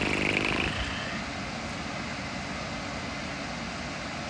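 Steady room hum, with a short, loud pitched sound in the first second.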